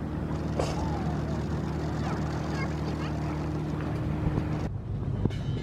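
A small boat's engine running steadily under a noise of water and wind. The hum cuts off abruptly about a second before the end, followed by a couple of sharp knocks.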